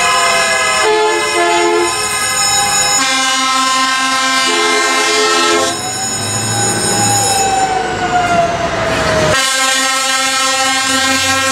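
Truck air horns and car horns held down continuously, several sounding at once, with horns starting and stopping every second or few seconds. Some horn pitches slide downward as the vehicles pass.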